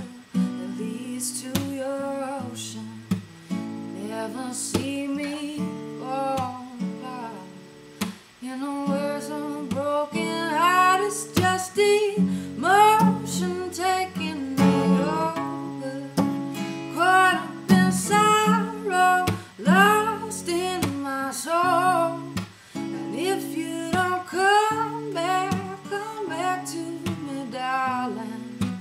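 A woman singing while accompanying herself on a strummed acoustic guitar.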